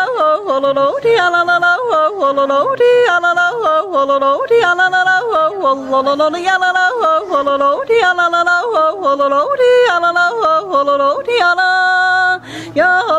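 A woman yodeling solo, her voice leaping quickly back and forth between low chest notes and high head notes, with a brief pause for breath near the end.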